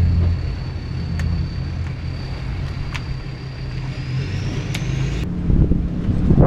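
An engine running at idle with a steady low hum. Over it a thin high whine rises in pitch and cuts off suddenly about five seconds in, with a few light clicks.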